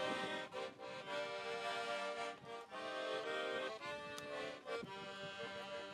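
Accordion playing an instrumental interlude between sung verses, held chords that change every second or so.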